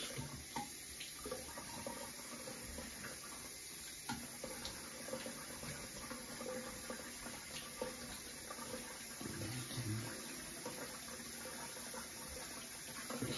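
Bathroom sink tap running in a steady rush of water that stops at the end, with a few light knocks. The owner calls this faucet's valves the loudest and says WD-40 did not quiet them.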